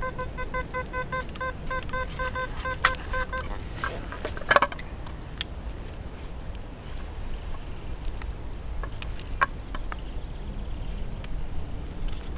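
A metal detector beeping on a target: short, evenly spaced pitched beeps, about three or four a second, that stop a few seconds in. Scattered clicks and knocks follow over a steady low rumble of wind and rain on the microphone.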